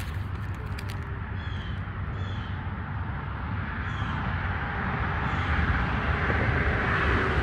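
Outdoor evening ambience. A steady low rumble runs throughout, with a few short, falling bird chirps in the first half, and a broad rushing noise swells over the last few seconds.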